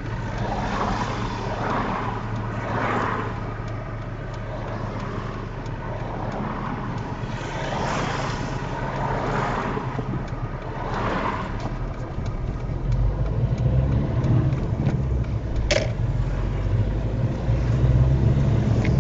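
Other vehicles swishing past a car that is waiting at a junction, heard from inside its cabin. About two-thirds of the way through the car pulls away, and its engine and road rumble grow. A single click comes near the end.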